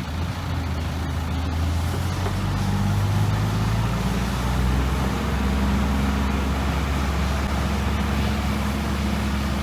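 Heavy diesel engine of construction equipment running under load, with a steady low drone that builds over the first couple of seconds and then holds.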